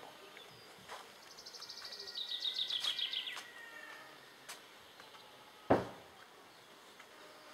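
A bird's high trill: a rapid run of short notes lasting about two seconds, stepping down in pitch halfway through. A single sharp knock about six seconds in.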